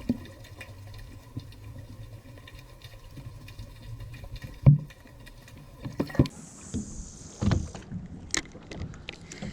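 Small fishing boat drifting: a steady low rumble of water against the hull, with scattered light clicks, a sharp knock about halfway through and a few softer knocks near the end.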